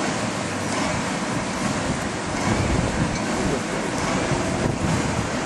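Wind buffeting the microphone: a steady rushing noise.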